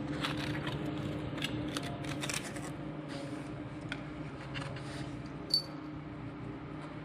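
Cocker Spaniel puppy's claws and chew toy scratching and clicking on a concrete floor close to the microphone, mostly in the first three seconds, over a steady low hum. One sharp click about five and a half seconds in.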